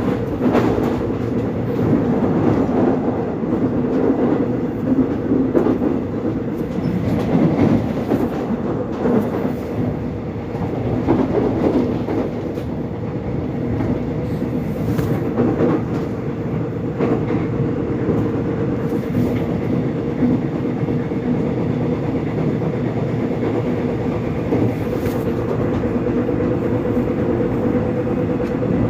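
Korean subway train running: a steady rumble with a constant hum, and scattered clicks of the wheels over the rails.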